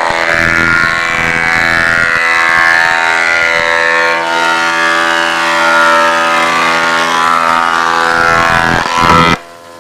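20-inch Jet planer cutting a 12½-inch-wide white oak board: a loud, steady whine of the cutterhead under load while the board feeds through. About nine seconds in the cut ends abruptly as the board leaves the cutterhead, and the planer drops back to a quieter idling hum.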